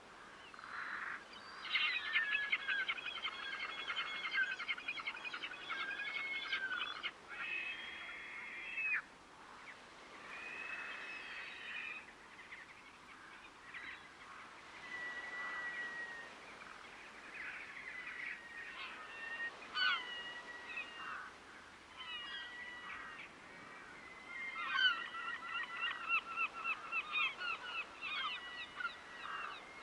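A flock of water birds calling. The birds give long bouts of quick, repeated honking calls near the start and again near the end, with scattered single calls in between.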